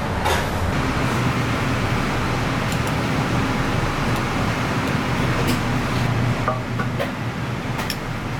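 Steady hum and hiss of running machinery, with a few faint light clicks scattered through it.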